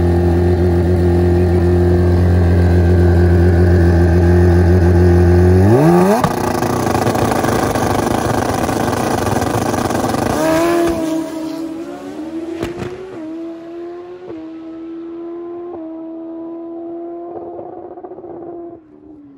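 Turbocharged Honda CBR1000RR inline-four drag bike, with a second bike alongside, held at steady high revs on the start line, then launching with a sharp rise in pitch about six seconds in. The engine note fades down the track, climbing and dropping through several gear changes.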